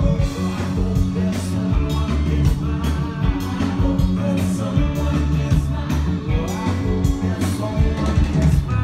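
Live rock band playing through a concert PA, with a steady drum beat, bass and a lead vocal.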